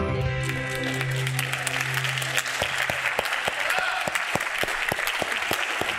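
Congregation applauding as a piece of music ends, with the music's last low held note fading out over the first few seconds. The clapping thins out toward the end.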